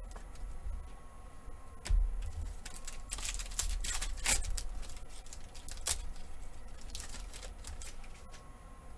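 Crinkling and crackling of a basketball card pack's wrapper being torn open by hand and the cards slid out, loudest about three to four and a half seconds in, with further crackles near six and seven seconds. A dull thump about two seconds in.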